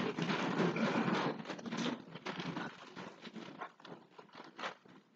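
A church congregation getting up from wooden pews: shuffling feet, rustling clothes and scattered knocks. It is busiest at first and dies away as people settle on their feet.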